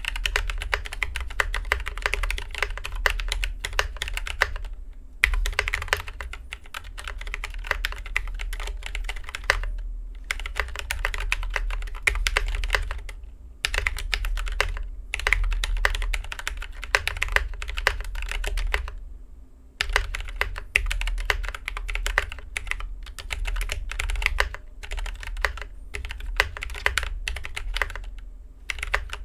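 Mechanical keyboard with stock, unlubed Gateron Yellow KS3 linear switches being typed on in fast runs of keystrokes, broken by several brief pauses.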